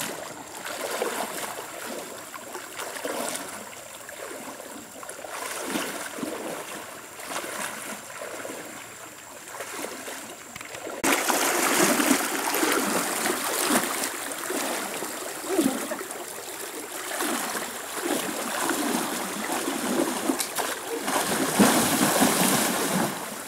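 Water splashing and churning as a person wades through a shallow stream, over the steady run of the stream. The splashing gets louder about halfway through and is heaviest near the end.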